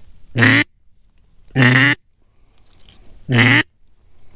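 Duck call blown in three drawn-out mallard hen quacks, about a second and a half apart, calling to ducks working the decoys.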